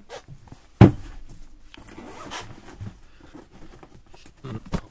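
Tools being handled as an impact wrench is got out: a heavy clunk about a second in as something is set down, then rustling and shuffling, and another couple of knocks near the end.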